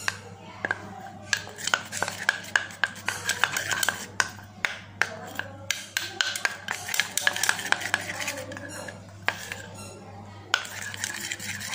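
Steel spoon stirring a thick honey mixture in a small stainless steel cup, with rapid clinks and scrapes against the metal sides. The clinking thins out for a couple of seconds near the end, then picks up again.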